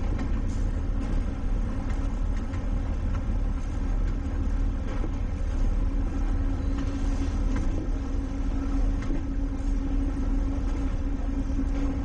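Towboat's diesel engine running steadily under way, a continuous low rumble with a steady hum that grows stronger about halfway through.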